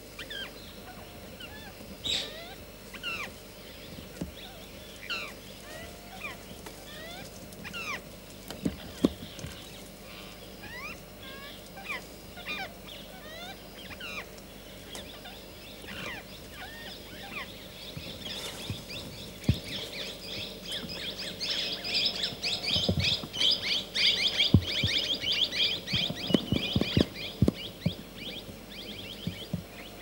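Birds chirping: many short, falling notes scattered through, then a dense run of rapid chattering from about two-thirds of the way in that lasts several seconds. A few dull knocks sound low down.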